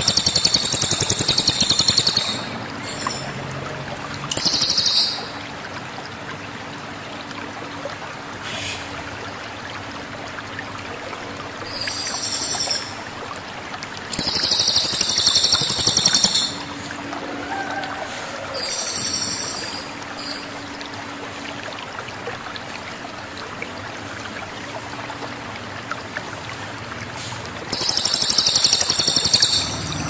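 Cililin Sumatra songbird singing: six bursts of very high, rapid, shrill phrases with pauses of a few seconds between them, over a steady background hiss.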